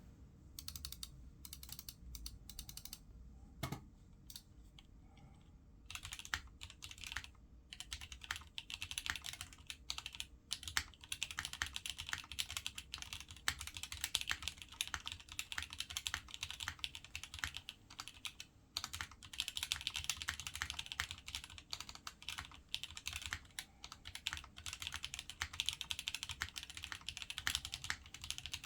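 Satisfaction75 custom mechanical keyboard being typed on, with lubed Momoka Frog linear switches on heavier springs, a POM plate and GMK keycaps. Scattered single keystrokes at first, then fast continuous typing from about six seconds in, with a brief pause about two-thirds of the way through.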